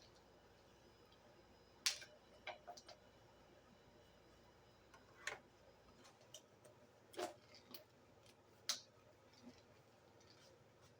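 Near silence with a few faint, scattered clicks and taps at irregular intervals, about six in all.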